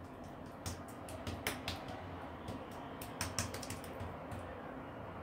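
Fingers pressing and spreading raw lahmacun topping (a wet minced-meat mixture) over thin dough on a countertop, making faint, irregular light clicks and taps.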